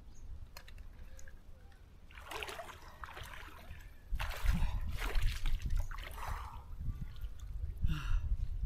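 Water splashing and sloshing as a hooked fish is brought into a landing net in shallow river water, in two spells, the louder one starting about four seconds in.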